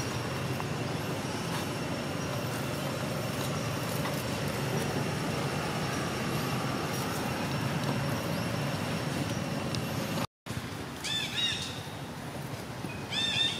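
A steady low rumble of background noise. After a cut about ten seconds in come two short bursts of high, arching squeaks from a baby long-tailed macaque.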